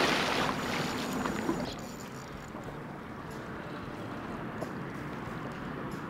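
A hooked tarpon splashing and thrashing at the water's surface, loud at first and dying away by about two seconds in, followed by a steady low hiss.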